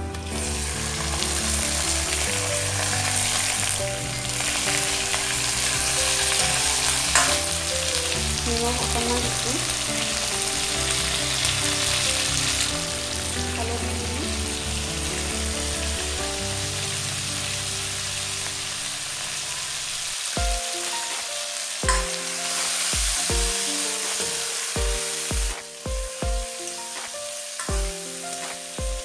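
Raw chicken pieces sizzling loudly as they fry in hot mustard oil with browned onions in a metal kadai and are stirred. The sizzle is strongest for the first dozen seconds and swells again a little past the middle. Background music with a beat runs underneath.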